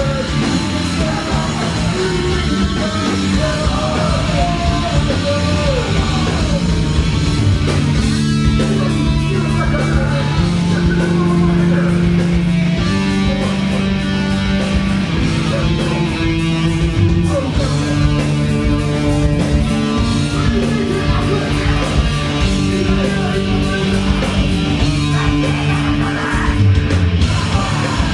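Loud heavy rock music: distorted guitar and bass holding long low notes that change every second or two, over a dense wash of high noise.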